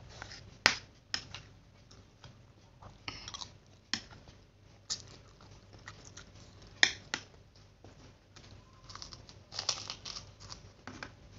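Close-up eating sounds: chewing fried noodles and rice, with a few sharp clicks of a spoon. Crisp crunching near the end as a kerupuk cracker is bitten.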